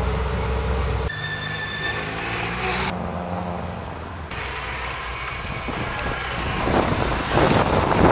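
Car engine running, heard through several abrupt cuts between shots, with a rising rush of noise near the end.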